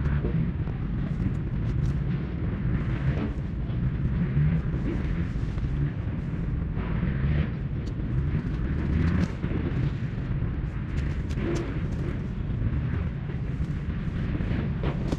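Mountain bike ridden over rough ground: a steady low rumble of wind on the microphone and tyres on the trail, with scattered clicks and rattles from the bike.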